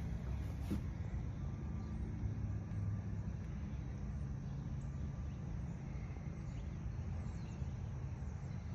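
Outdoor ambience: a steady low rumble, with a light knock just under a second in and a few faint bird chirps.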